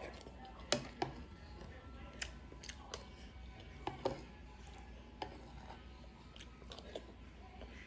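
Scattered sharp clicks and taps of someone eating rice with broth: spoon and bowl contact and mouth sounds, about a dozen at irregular intervals.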